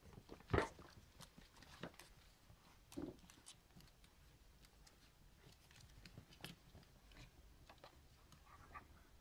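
Faint scattered clicks, taps and scuffs of Schipperke puppies playing on a wooden floor, with louder knocks about half a second in and again at about three seconds.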